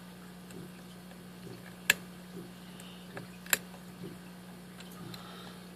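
Lock pick and tension wrench clicking in the pin-tumbler core of a Master Lock safety lockout padlock as it is picked: two sharp clicks about a second and a half apart, with fainter ticks around them. A steady low hum runs underneath.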